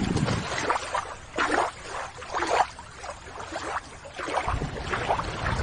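Water sloshing and splashing in a series of irregular swishes about once a second, with a longer, fuller one near the end, as a toy octopus is put back into the water.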